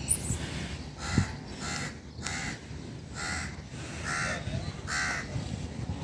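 A crow cawing about six times, roughly one caw every half-second to second.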